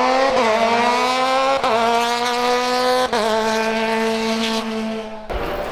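Racing car engine accelerating hard up a hill climb, its pitch climbing and dropping sharply at each upshift, three shifts about a second and a half apart. It then holds near-steady at high revs and cuts off suddenly near the end.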